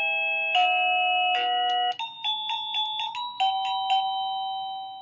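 SadoTech Model H wireless doorbell receiver playing its electronic chime tunes as its music button is pressed to cycle through the ring tones. The tune jumps to a new one three times in the first two seconds, then one plays on as a quick run of notes that ends in a held note fading out near the end.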